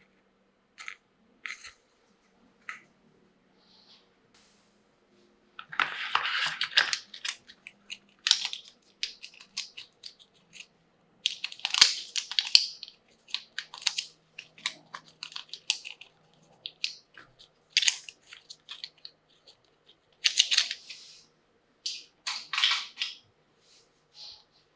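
Unboxing handling of toy packaging and small plastic toy pieces: irregular rustling, crinkling and tearing with sharp clicks, a few isolated clicks at first, then busier bursts from about five seconds in.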